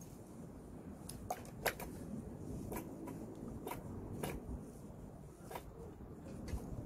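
Handling noise from a collapsible mesh fish trap being worked on by hand: rustling nylon netting and a handful of irregular light clicks from its frame and fittings, over a low rumble.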